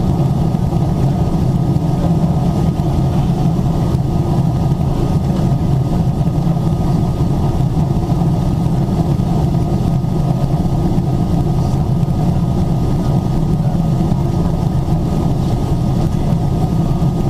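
Steady cabin drone of a Boeing 777-300ER in level flight, the hum of its GE90 engines mixed with the rush of air past the fuselage. It holds an even low rumble with a faint steady whine above it.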